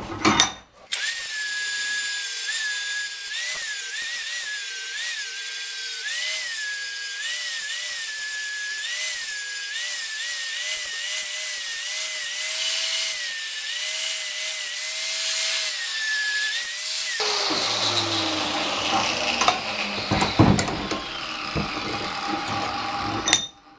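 Handheld angle grinder running with its disc grinding into a steel dagger blade clamped in a vise. The motor's whine dips and recovers as the disc bites, over a steady hiss of grinding. About 17 seconds in it is switched off and winds down, followed by a few knocks of the tool and work being handled.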